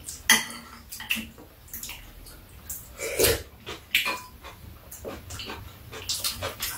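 Eating at the table: metal spoons clinking and scraping against ceramic bowls, in a string of short sharp clicks, mixed with the mouth sounds of eating soup.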